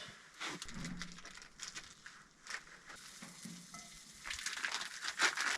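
Food sizzling in a frying pan, a steady hiss with scattered small crackles and pops.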